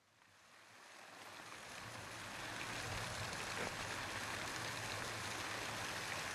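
Fountain jets splashing into a stone basin: a steady rushing of water that fades in over the first few seconds.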